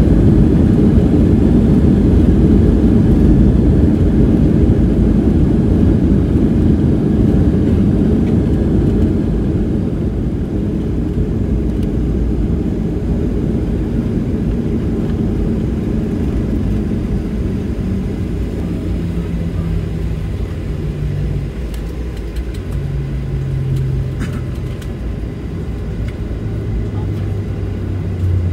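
Cabin noise of a Boeing 737-700 slowing after touchdown: the steady rumble of its CFM56-7B engines and the wheels on the runway, easing off as the jet decelerates. In the second half a low hum steps down in pitch.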